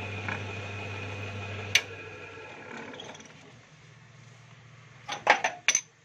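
A steady machine hum stops with a sharp click just under two seconds in. Near the end comes a quick run of sharp metal clinks and knocks: the welded propeller shaft and the lathe chuck being handled.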